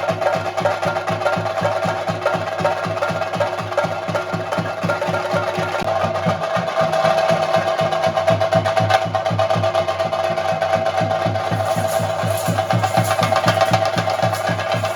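Chenda drums beaten in a fast, dense, unbroken rhythm, with a steady held tone sounding above the drumming.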